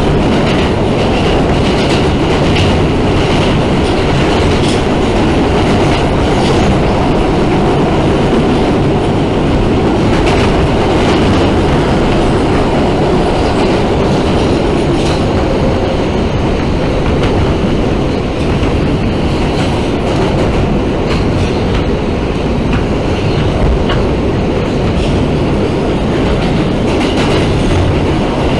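New York City subway train running between stations, heard from inside the car: a steady loud rumble with clickety-clack from the wheels and a faint squeal of the wheels now and then.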